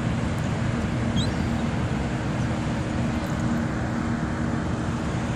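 Steady low engine drone with rough rumbling underneath, as of wind on the microphone. A short high chirp sounds about a second in.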